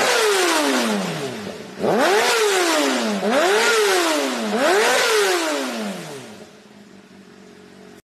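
Sport motorcycle engine free-revving in neutral: four quick throttle blips, each rising sharply in pitch and sliding back down. It drops back to a quiet idle near the end.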